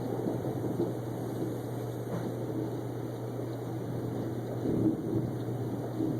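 Passing thunderstorm: a steady low rumble of thunder and storm noise, swelling briefly about five seconds in, over a constant low hum.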